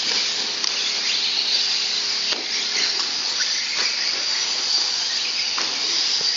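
Radio-controlled short course trucks racing on dirt: a steady high hiss of their motors, drivetrains and tyres, with a few faint knocks.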